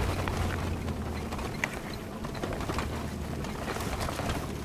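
Inside a car driving over a rutted sand track: a steady low engine and tyre drone, with frequent small rattles and creaks from the car's body and interior as it bounces along.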